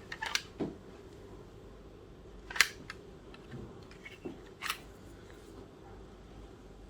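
A few sharp plastic clicks from a Lego pistol model being handled, the loudest about two and a half seconds in and another a couple of seconds later.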